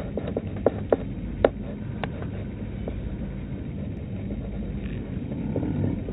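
Steady road and engine noise of a moving car heard from inside the cabin, with a few sharp clicks in the first two seconds.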